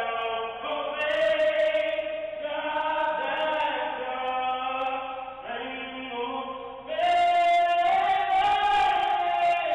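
A man singing solo and unaccompanied in a strong voice in a stairwell, with long held notes. The voice drops quieter for a moment past the middle, then rises into a long, loud held note near the end.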